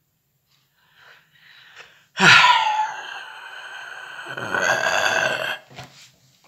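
Faint mouth noises, then about two seconds in a sudden, loud, drawn-out vocal noise from the man eating, not words, lasting about three seconds.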